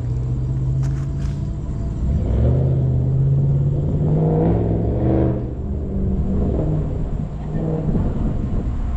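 Car engine running at low speed, a deep steady hum that revs up and eases off about halfway through.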